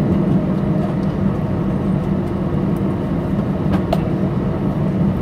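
Steady low drone inside the cabin of an Airbus A319 standing at the gate, with a couple of light clicks a little under four seconds in.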